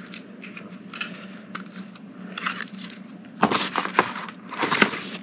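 Plastic toy packaging and a plastic tote bag being handled: crinkling and crackling, with two louder bursts of crackling about three and a half and five seconds in.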